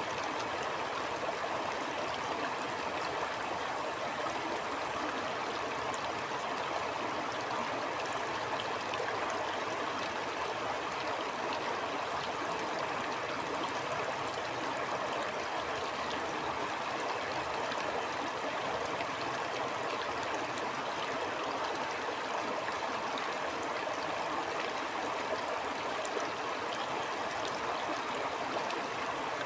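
A stream flowing with a steady, even rush of water that does not change.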